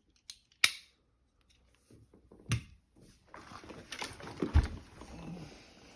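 Hand tools clicking and rattling as they are handled and put back into a plastic tool tote, with a few sharp clicks, then a run of rustling and clatter and one heavy thump about four and a half seconds in.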